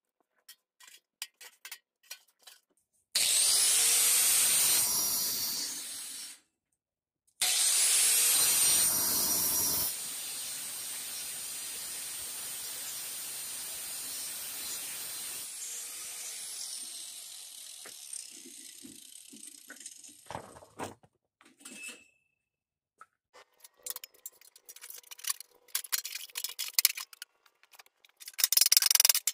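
Angle grinder cutting through steel tubing with an abrasive disc in two loud passes, each starting with a rising whine as the disc spins up. This gives way to a quieter steady grind that fades out. After that come scattered clicks and metal clatter, with a burst of hammering on metal near the end.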